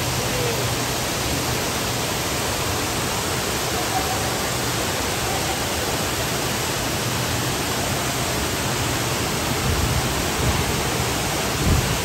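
Dudhsagar Falls, a tall waterfall, crashing into its plunge pool: a steady, loud rushing roar. A brief low bump comes near the end.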